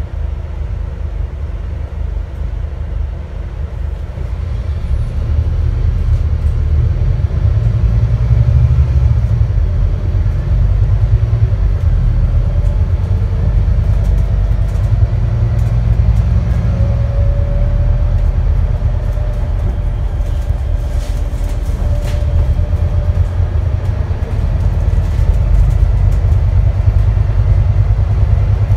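Scania N250UD double-decker bus's five-cylinder diesel engine and ZF Ecolife automatic gearbox, heard from inside on the upper deck, driven hard as the bus accelerates. It gets louder over the first few seconds, then holds a heavy, loud drone, with faint rising tones from the driveline as it picks up speed.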